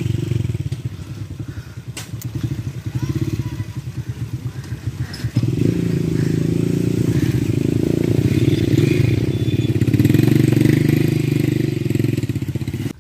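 Motorcycle engine running under load as a two-up trail bike climbs a muddy track, its firing pulses steady and getting louder about five seconds in as it passes close. The sound stops abruptly at the end.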